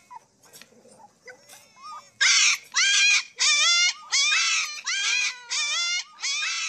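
A husky puppy whines faintly. About two seconds in, a run of about eight loud, high animal cries begins, each about half a second long, rising then falling in pitch.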